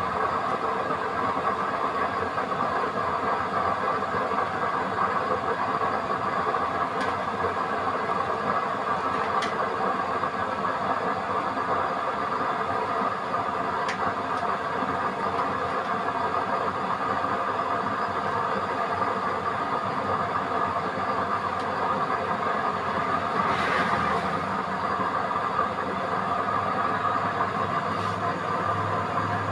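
Small electric centrifugal blower fan whirring steadily as it forces air into a burning DIY waste-oil stove, together with the rush of the flame. A few faint ticks are heard along the way.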